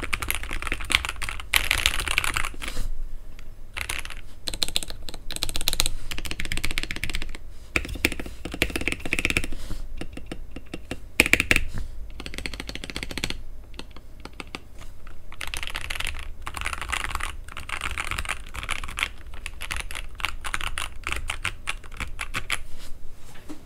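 Typing on a custom mechanical keyboard (TM680 / PressPlay Orbiter with Aflion Iceberg switches, tape mod, silicone dampener and plate foam): fast runs of keystrokes in bursts with short pauses.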